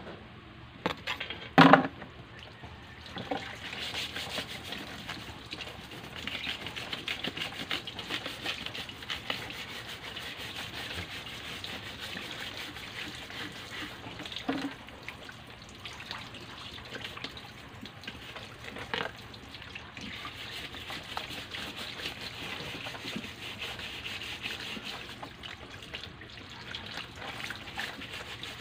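Tap water running into a kitchen sink and splashing as a lobster is rinsed under it. A sharp knock comes about a second and a half in, with fainter knocks later.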